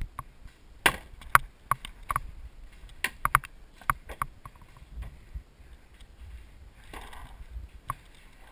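Paintball fire: a quick, irregular run of about a dozen sharp cracks and smacks over the first few seconds, then only one or two more.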